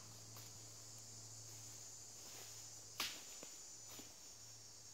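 Faint outdoor woodland ambience: a steady, high, even insect hiss, with soft footsteps on dry leaf litter and one sharp crack about three seconds in.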